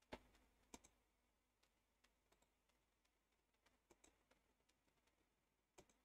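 A handful of faint, irregular clicks from a computer mouse and keyboard being worked, over near-silent room tone.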